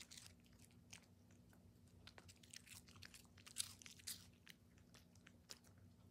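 A small dog chewing bits of crunchy rice cake: faint, irregular crunches, with a couple of louder ones about three and a half and four seconds in.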